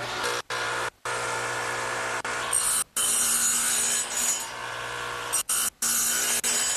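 Table saw with a dado head cutter running with a steady hum and cutting half-lap joints in oak, the high cutting noise loudest in the middle. The sound breaks off abruptly several times.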